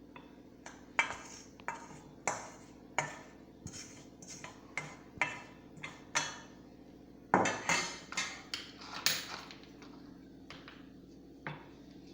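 Dried, cooked alum being pounded with a pestle: a run of sharp, ringing strikes, about two to three a second, loudest past the middle and thinning out near the end.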